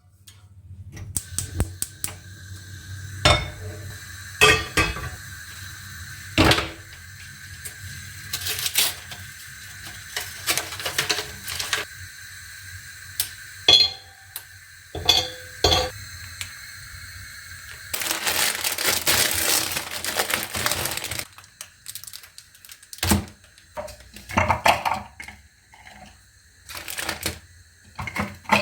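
Kitchen clatter of pots, bowls and utensils: scattered knocks and clinks over a steady low hum, with a rush of noise lasting about three seconds past the middle.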